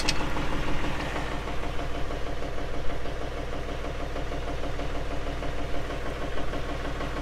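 Valmet 505 tractor's diesel engine running steadily at idle.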